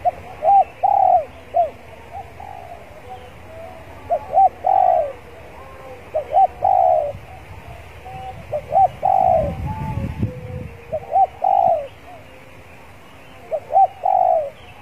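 Spotted dove cooing six times, about every two seconds, each phrase a couple of short notes ending in a longer falling coo. A low rumble sounds about two-thirds of the way through.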